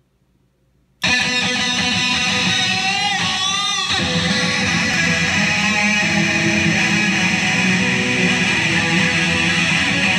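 Loud distorted electric guitar noise from a Line 6 combo amplifier, cutting in suddenly about a second in and then holding as a dense, sustained drone, with a wavering, warbling pitch for about a second around the three-second mark.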